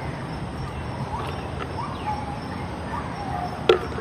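Birds chirping in short, scattered calls over a steady outdoor hiss, with one sharp click near the end.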